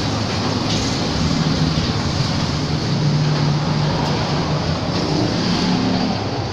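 A motor vehicle engine running steadily, its low hum shifting slightly in pitch under a noisy hiss.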